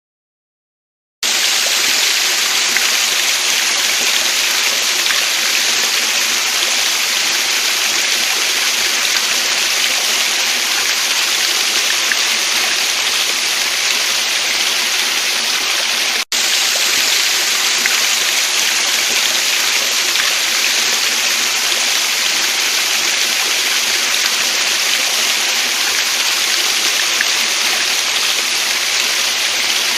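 Waterfall rushing steadily, an even hiss of falling water that starts about a second in, broken once by a split-second gap near the middle.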